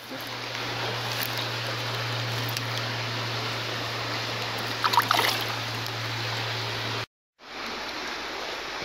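Shallow stream running close to the microphone, with a few short splashes about five seconds in as a hand goes into the water; a steady low hum runs underneath, and the sound cuts out for a moment about seven seconds in.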